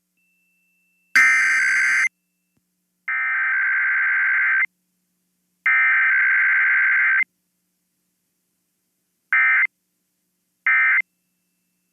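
Emergency Alert System SAME digital data bursts. First come three long header bursts about a second apart, then two short end-of-message bursts about a second and a half apart near the end.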